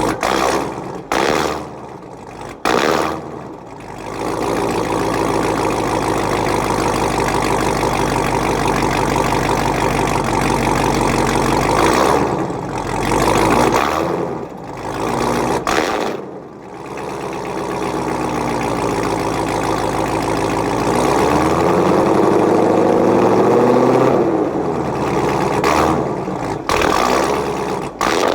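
2015 Chevrolet Corvette Z06's supercharged 6.2-litre V8 being revved: a few quick blips at first, then held at steady high revs for several seconds. More short revs follow, and near the end the engine note climbs slowly in pitch before dropping back.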